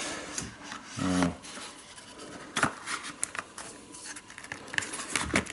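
Light handling noises: scattered small clicks and rubbing as a hand-made hatchet is turned over in the hands. There is a brief hum of voice about a second in.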